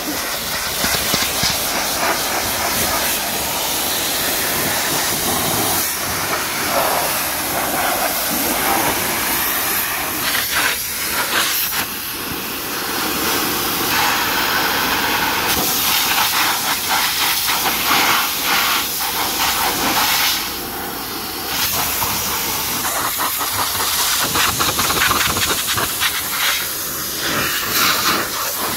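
High-pressure washer wand spraying a steady jet of water onto a car's wheel and lower body panels, rinsing off the wash foam.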